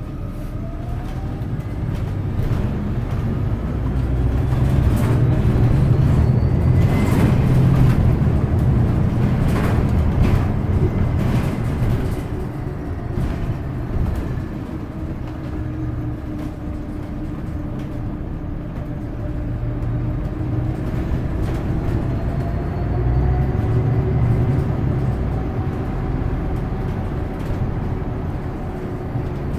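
Inside a moving San Francisco Muni bus: its drivetrain runs with a low rumble and road noise. A faint whine rises as the bus pulls away and again as it speeds up about three quarters of the way through, and a few rattles and knocks come about a quarter of the way in.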